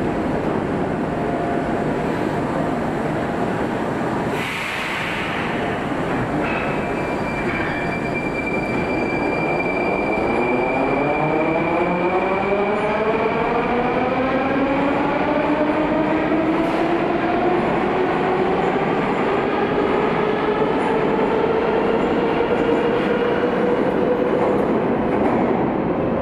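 Metro train pulling out of the station, its electric traction motors whining and rising steadily in pitch as it accelerates away. A short hiss comes about four seconds in, before the whine starts to climb.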